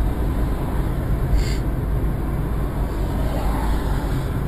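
Steady low road and engine rumble of a moving car, heard from inside the cabin. A short hiss comes about a second and a half in.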